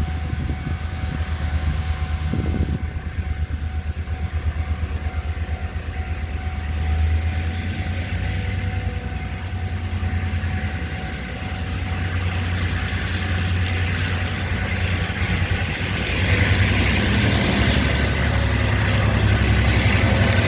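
Taiwan Railway R-class diesel-electric locomotive throbbing heavily as it pulls a long freight train away. A steady whine runs over the engine, which gets louder and noisier from about three quarters of the way through as it works harder.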